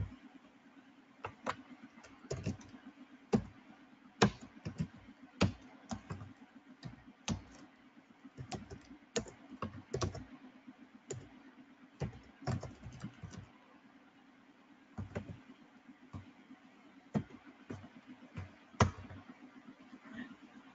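Computer keyboard being typed on in irregular, unhurried keystrokes with short pauses between bursts, over a steady low hum.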